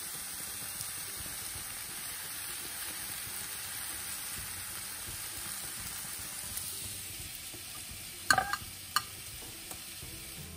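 Salmon fillets and mushrooms sizzling in olive oil in a frying pan, a steady hiss, with the pan's sauce nearly cooked off. Two short knocks come a little past eight seconds in.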